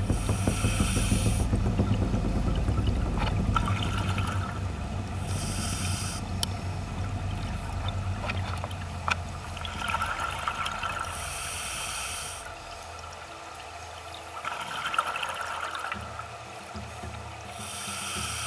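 Scuba diver breathing through a regulator underwater: a hissing inhalation and a burst of exhaled bubbles, repeating in a slow cycle of roughly five to six seconds.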